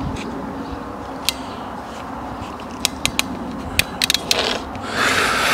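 Hand crimping tool with interchangeable jaws being handled as the jaws are taken out and swapped: scattered sharp metal clicks, then a short rustling hiss near the end.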